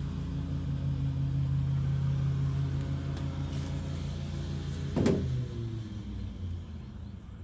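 A steady low engine hum, then a single sharp clack about five seconds in, after which the hum drops away.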